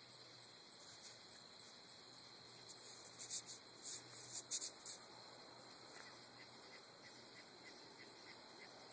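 Insects calling at night: a short run of raspy, high-pitched chirps about three to five seconds in, then faint regular ticking over a steady low hiss. No thunder.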